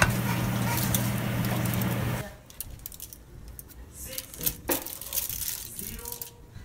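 Quesadillas frying in a pan, an even hiss under a steady low hum, with a spatula clink at the start. About two seconds in it cuts to a much quieter knife cutting a pizza roll on aluminium foil, with light clicks and rustles.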